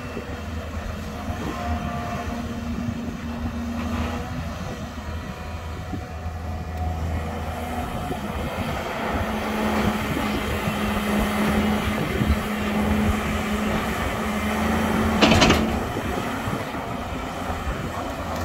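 Volvo tracked excavator's diesel engine running under load while it digs and swings a loaded bucket, with a steady whine that strengthens from about halfway through and stops near the end. A sharp clank comes about three-quarters of the way in and is the loudest moment.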